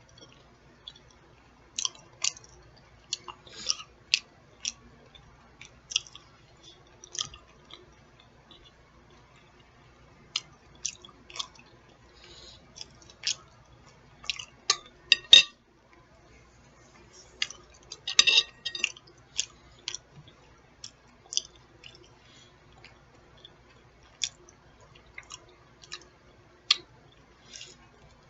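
A person chewing and smacking food close to the microphone: irregular short, wet mouth clicks throughout, with a few sharper ones about halfway through.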